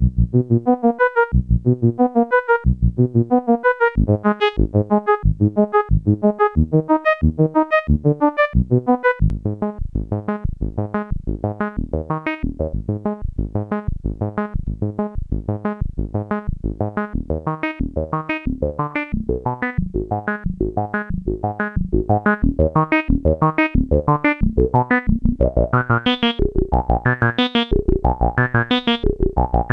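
Electronic synthesizer music with electric-piano-like short, evenly repeated notes. About nine seconds in the notes come faster, and near the end a brighter, higher layer joins.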